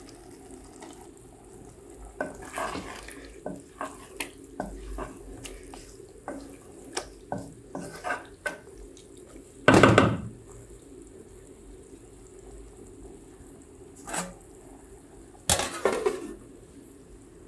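Wooden spoon scraping and tapping in an aluminium pot of stewing sardines, a string of short knocks with one loud knock about ten seconds in. Near the end the aluminium lid clatters onto the pot.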